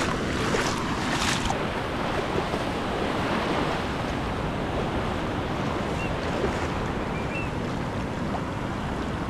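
Caribbean Sea surf: waves washing in steadily, with wind rumbling on the microphone.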